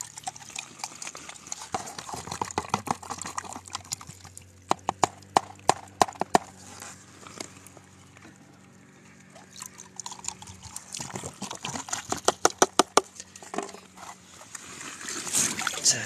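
Clear plastic bottle held in a stream, filling with water and being shaken to loosen the gold-bearing sediment inside. The water glugs and sloshes in two runs of quick knocks, about five seconds in and again about eleven seconds in.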